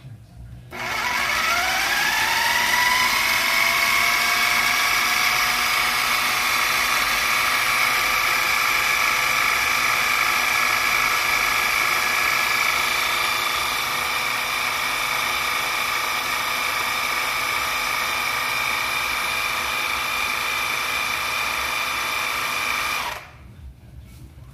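Food processor motor starting about a second in and whining up to speed, then running steadily as it blends green seasoning, before it is switched off and cuts out near the end.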